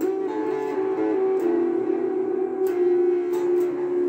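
Stratocaster-style electric guitar played through an amplifier: held, ringing notes with a few sharp pick attacks.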